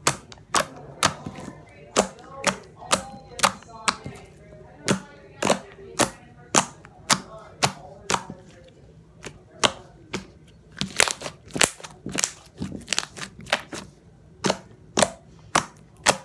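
Thick, glossy slime being poked and pressed with fingertips, making a run of sharp popping clicks about two a second, coming thicker about eleven to thirteen seconds in.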